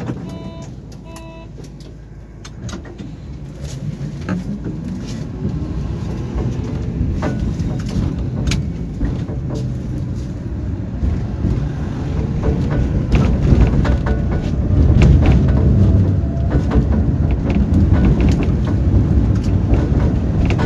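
Tram door warning signal beeping in short two-tone pips at the start, then the tram pulls away. Its traction motor whine rises slowly in pitch as the tram accelerates, under a growing rumble of wheels on rail with frequent clacks, heard from inside the car.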